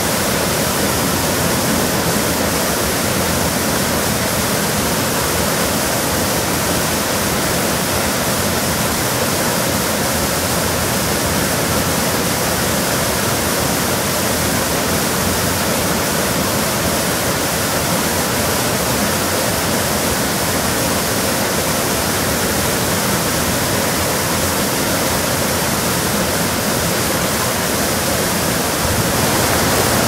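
Water pouring in a broad sheet over a stone weir into a shallow stream pool: a steady, loud rush of falling water.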